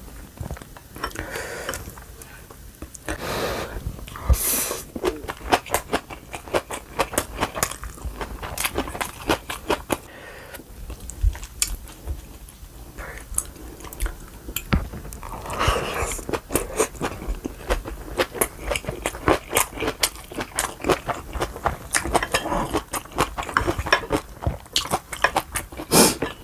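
A person chewing and crunching food close to the microphone: many quick, irregular crisp crunches, with a few longer noisy stretches.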